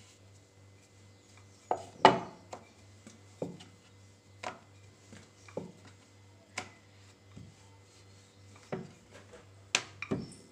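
Wooden rolling pin knocking and clattering against a round wooden rolling board as dough is rolled out by hand: a scattering of irregular sharp knocks, the loudest about two seconds in and two close together near the end.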